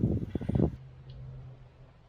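Wind gusting against the microphone, a loud ragged low rumble that dies away within the first second, leaving a faint steady low hum.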